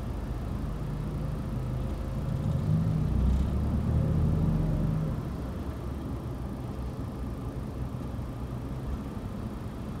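Car engine and road noise heard from inside the cabin while moving slowly in traffic, a steady low rumble that swells louder for a couple of seconds near the middle.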